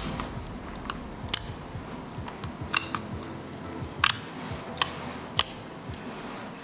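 Slime being squeezed and pressed by hand, giving off sharp crackling pops as trapped air bubbles burst: about five loud pops roughly a second apart, with smaller clicks in between.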